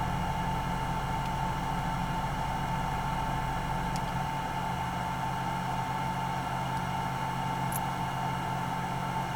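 A steady mechanical hum with a constant high-pitched whine running through it; the deepest rumble drops away about four seconds in.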